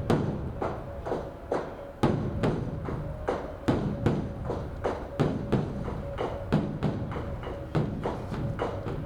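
Beopgo, the large Korean Buddhist dharma drum, beaten with two sticks in a brisk, uneven rhythm of about two to three strikes a second, some strikes louder than others. It is the drum rite that announces evening worship at a temple.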